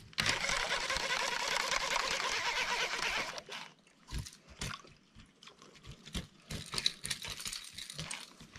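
Water splashing for about three seconds, then quieter with a few scattered small knocks.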